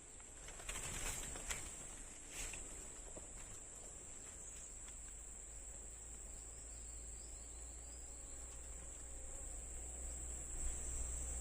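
Steady high-pitched chorus of crickets, with a few brief knocks or rustles in the first couple of seconds.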